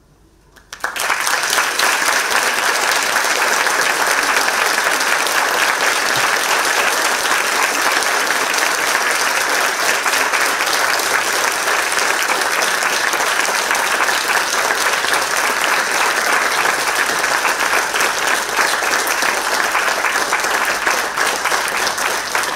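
Audience applauding: after a short moment of quiet, clapping starts about a second in and carries on steadily.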